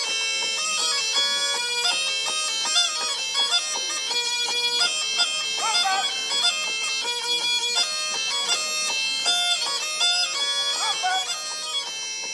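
Croatian mih bagpipe playing a folk dance tune: a steady held note under a melody that moves in short notes.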